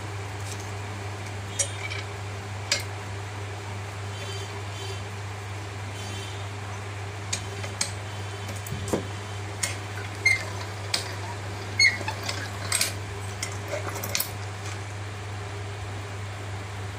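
Steady hum of a ROPP capping machine running, with scattered sharp metal and glass clinks as a glass bottle is set under the capping head and capped; the clinks come thickest from about seven to fourteen seconds in.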